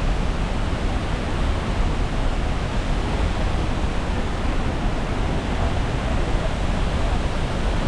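Steady rushing of a large waterfall, La Fortuna Waterfall, heard close by as an even, unbroken wash of noise heaviest in the low end.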